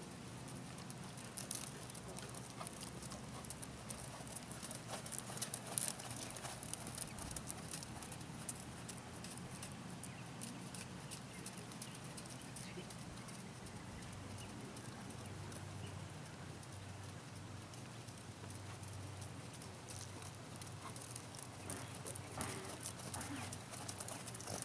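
A horse's hooves falling on soft arena sand as it trots, faint and irregular, with the clicks growing busier as it passes close near the end.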